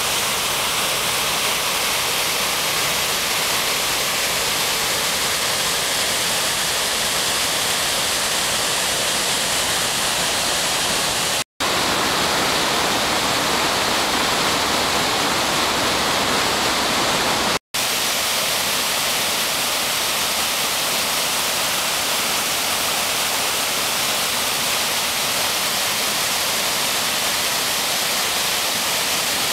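Steady, heavy rushing of a waterfall in high flow after spring snowfall. The sound cuts out briefly twice, about a third and about two-thirds of the way in; in between, the rushing comes from the flooded creek below the falls.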